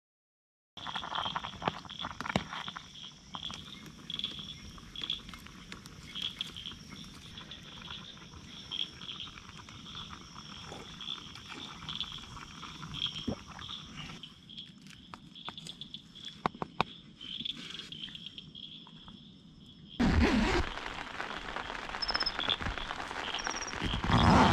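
Night chorus of frogs and insects, a high trill pulsing steadily, with a campfire crackling and giving off sharp pops now and then. About twenty seconds in, louder rustling of tent fabric close by takes over.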